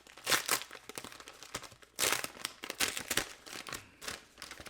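Packaging being crinkled and torn open by hand: irregular rustling and crackling as a heavily taped, sealed package is pulled apart.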